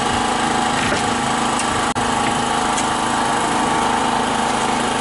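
A small engine running steadily, a constant drone with a fixed hum that does not change in pitch.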